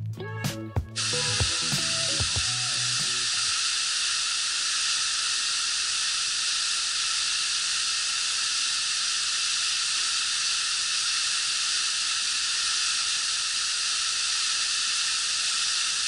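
Steady hiss of water falling from a partly frozen waterfall, starting suddenly about a second in. Background music fades out during the first few seconds.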